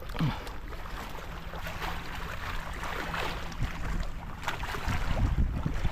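Wind buffeting the microphone at the seashore, with the sea washing in the background.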